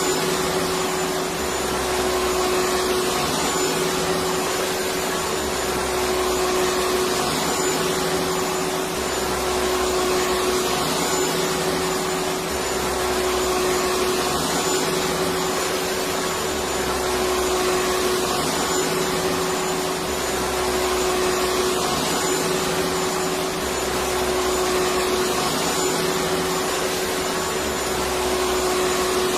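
Electric vacuum cleaner running continuously: a steady rushing whoosh of air with a constant motor hum, pulsing faintly about every two seconds, used as soothing white noise for babies.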